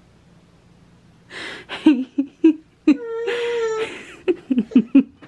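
A toddler's voice: a breathy sound after about a second, a long high-pitched 'aah' near the middle, then a quick run of short sounds like giggling near the end.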